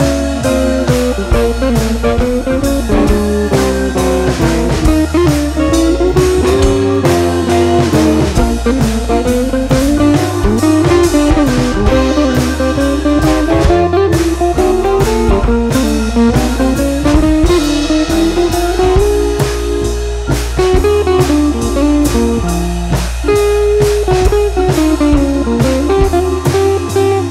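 Background music: a blues tune with guitar melody over a steady drum-kit beat.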